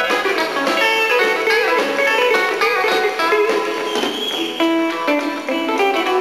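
Live country-blues band music: an electric guitar plays a fast lead of quick note runs and bent notes over the drums, holding one high note about four seconds in.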